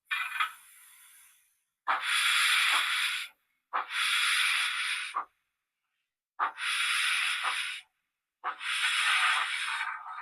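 Steam hiss from the sound-fitted Rapido 00 gauge Hunslet model's onboard speaker: about five long bursts of hiss, each roughly a second and a half, with short silent gaps between them.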